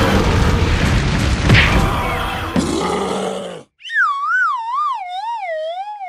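A dense, noisy mix, music with effects layered over it, cuts off suddenly; about four seconds in, an added sound effect follows: a single tone that wobbles up and down about three times a second while sliding steadily down in pitch.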